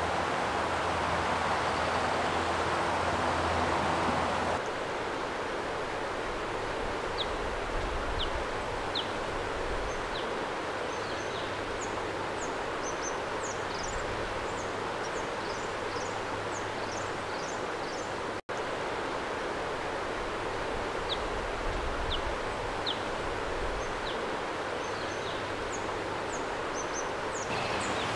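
Steady rush of water flowing in a river, fuller for the first few seconds. Small birds call over it in quick, high, falling chirps, in two runs of several seconds each.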